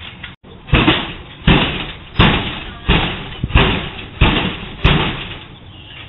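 Seven loud bangs, evenly spaced about two-thirds of a second apart, each dying away quickly: a garage door being struck over and over.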